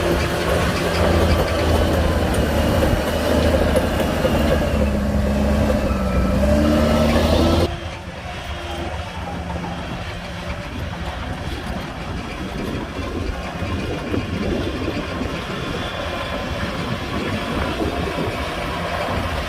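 Heavy earthmoving machine's diesel engine running, its pitch dipping and then rising about five to seven seconds in. Just under eight seconds in the sound cuts off abruptly to a quieter, steady engine rumble.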